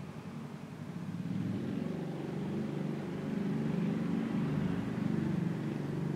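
A motor vehicle passing by: a low engine rumble that swells from about a second in and fades near the end.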